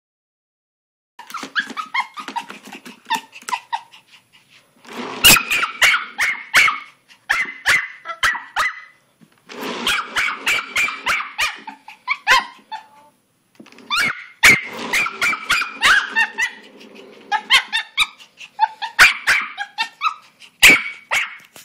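Jack Russell–Pomeranian mix puppy barking and growling in quick, repeated bursts with short pauses. Several sharp knocks are mixed in, the loudest a little over five seconds in.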